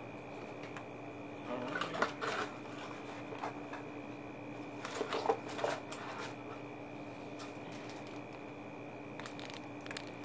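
Clear plastic packaging crinkling and rustling as items are handled, in short bursts about 2 seconds in, around 5 seconds in and again near the end, over a faint steady hum.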